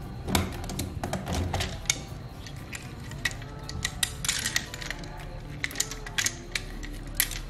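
Plastic parts of an Optimus Prime transforming-robot toy truck clicking and clattering as it is handled and turned over in the hands: a scatter of short, sharp clicks.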